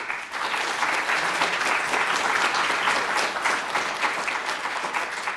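An audience applauding, starting all at once and holding steady.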